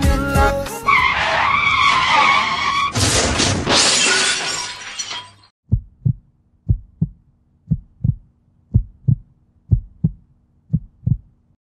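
Motorcycle crash sound effects: a tyre skid squeals with a wavering pitch for about two seconds, then a crash with a long smashing noise fades out. After that a heartbeat effect plays, double thumps about once a second over a low hum.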